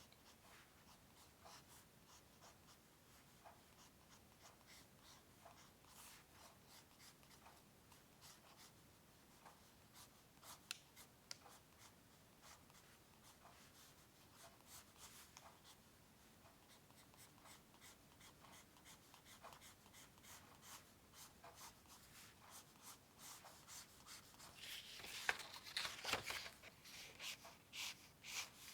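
Pencil scratching on paper in a run of short, quick strokes, faint at first, then louder and denser near the end.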